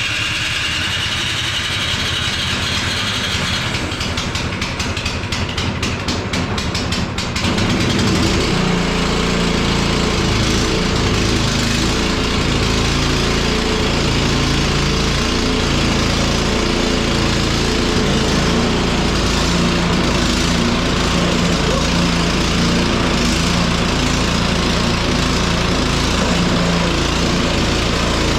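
Cub Cadet 1X snow blower engine being electric-started on choke after a carburettor cleaning and fresh gas. The starter whirs and cranks, the engine sputters and catches about seven seconds in, then runs steadily.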